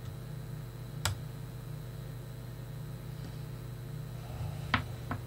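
Sharp clicks and knocks of hands fumbling at a workbench: one about a second in and two close together near the end, the first of these the loudest. A steady low hum runs underneath.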